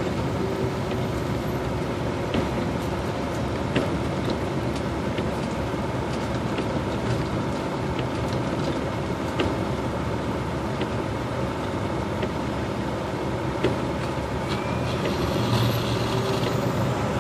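Semi-truck's diesel engine and wet-road tyre noise heard from inside the cab while driving, a steady drone with scattered light ticks, growing a little louder near the end.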